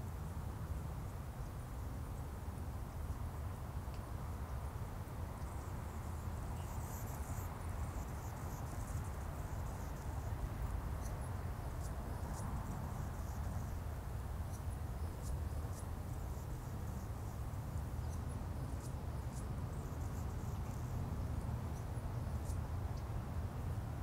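Marsh-pond ambience: a steady low rumble underneath, with faint, very high, short chirps or ticks scattered through from about seven seconds in.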